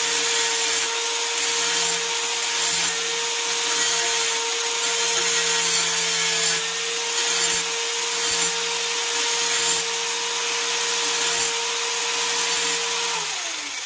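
Electric grinder motor running at a steady pitch with a strong hiss, then winding down in pitch near the end as it is switched off.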